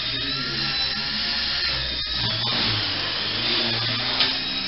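Walkera Super CP micro collective-pitch RC helicopter in flight: high electric-motor whine that wavers in pitch over the buzz of the spinning rotor, with a low rotor hum swelling and fading.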